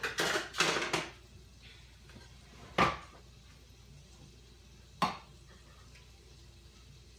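Dishes and a measuring cup being handled at a kitchen counter: a clatter in the first second, then two sharp knocks about two seconds apart.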